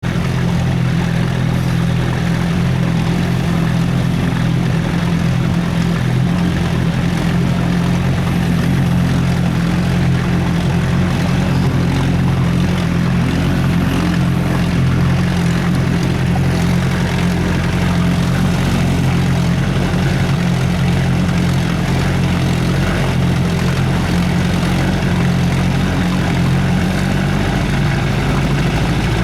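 1970 Evinrude Sportster 25 hp two-cylinder two-stroke outboard motor running at a steady speed, its exhaust baffle gasket leaking badly.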